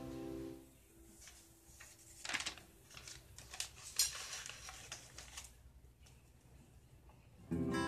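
Acoustic guitar chord ringing out and stopping about half a second in, then soft scattered rustles and clicks of a sheet of paper being handled. A new strummed guitar chord starts near the end.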